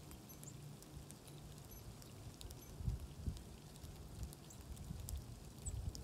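Faint outdoor winter ambience: low rumbling bumps on the microphone, loudest about halfway through, with light scattered ticking patter and a few very short, faint high chirps from small birds feeding.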